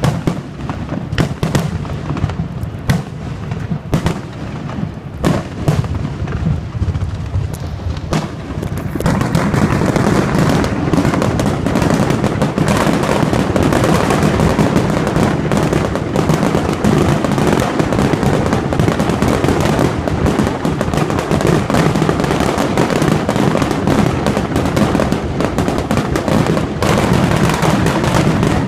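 Fireworks display going off: separate bangs for the first several seconds, then from about nine seconds in a dense, continuous barrage of overlapping bangs, louder than before.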